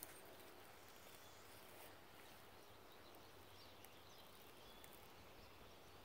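Near silence: quiet woodland ambience with a few faint, distant bird chirps.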